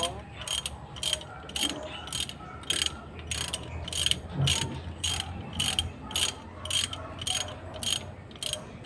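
Hand ratchet wrench clicking in short, even strokes, about three clicks a second, as it turns a bolt on a diesel engine's cylinder head.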